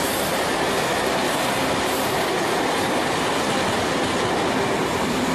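Passenger train coaches running past on the rails: a steady, loud rush of wheels on track.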